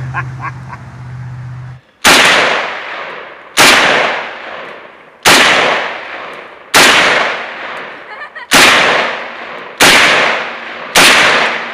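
AK-pattern rifle fired seven times, one shot roughly every one and a half seconds, each crack followed by a long echo dying away across the range. The first shot comes about two seconds in.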